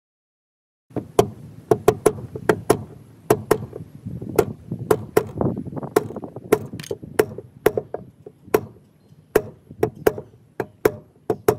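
A sledgehammer striking the handle of a screwdriver wedged under a boat's through-hull transducer: about two dozen sharp metallic blows, two or three a second, starting about a second in. The blows drive the screwdriver in to break the transducer's 5200 sealant bond with the hull.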